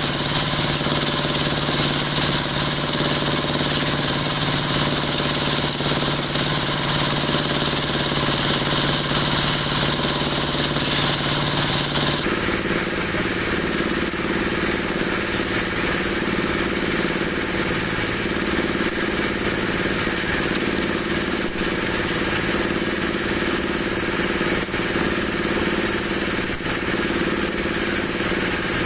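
Dowel-making machine for broom handles running steadily. Its steady hum and hiss change abruptly about twelve seconds in.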